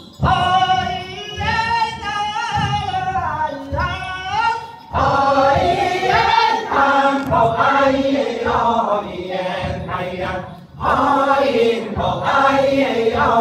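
A mixed choir of women and men singing an Amis folk song together, in long phrases with brief breaks about five and eleven seconds in.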